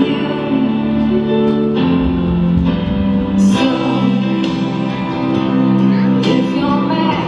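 A song with singing and long held notes, played back during a children's dance routine.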